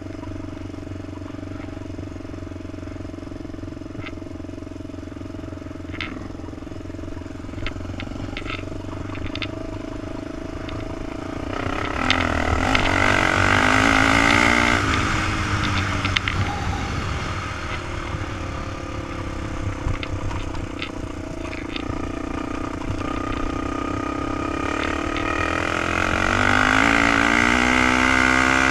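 Honda 400EX quad's single-cylinder four-stroke engine running under way, pitch rising as it revs up harder about twelve seconds in and again near the end. There are a few light clicks in the quieter first stretch.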